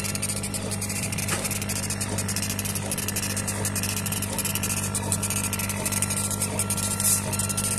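Laser engraving and cutting machine running: a steady hum under a constant hiss of air and fans, with a short whine that comes and goes about twice a second as the head travels back and forth.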